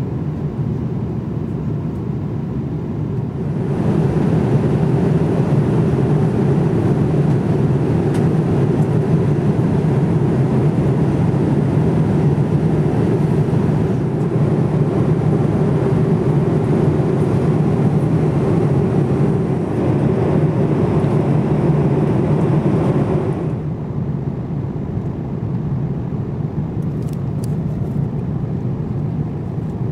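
Steady noise of a Boeing 787-9 jet airliner, louder and brighter from about 3 seconds in, dropping back abruptly about 23 seconds in.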